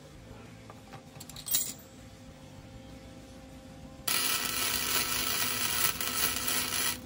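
Flux-core (Innershield) wire-feed welder arc welding steel: a few light metal clicks first. About four seconds in comes a steady crackling hiss of the arc, which cuts off sharply about three seconds later, a tack weld on the rock slider.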